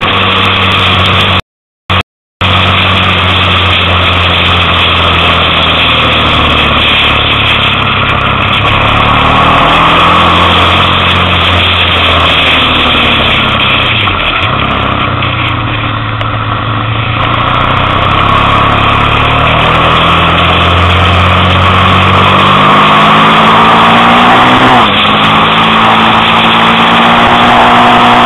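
Motorcycle engine running on the move, heard from the bike with a loud rush of noise over it. Engine pitch drops as it slows for a bend about halfway through, climbs again as it pulls away, and rises once more near the end. The sound cuts out twice, briefly, about two seconds in.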